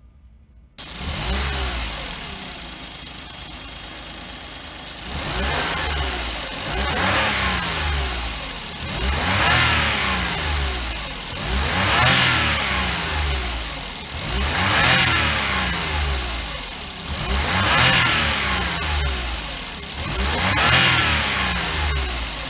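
Suzuki Every's turbocharged three-cylinder engine revved again and again, about seven rising-and-falling blips a few seconds apart, dropping back to idle between them. Under throttle the turbocharger's blades strike its housing, making an abnormal noise: turbo damage from running over 10,000 km without an oil change.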